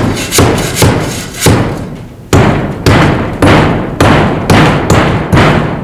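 Steel shovel blade chopping again and again into hard, rocky compacted dirt, about two strikes a second with a brief pause partway through, knocking soil out along the base of a wall.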